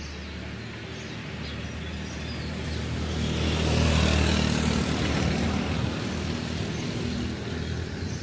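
A small van and a motor scooter driving past on the street, their engine noise swelling to a peak about halfway through and then fading away. Birds chirp lightly throughout.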